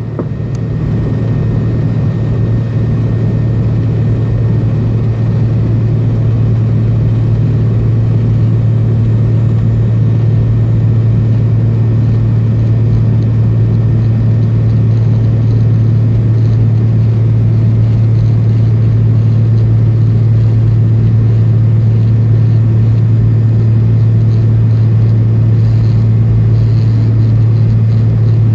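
Cabin drone of an MD-80's rear-mounted Pratt & Whitney JT8D turbofans. It swells over the first few seconds, then holds a loud, steady low rumble as the engines run up for takeoff.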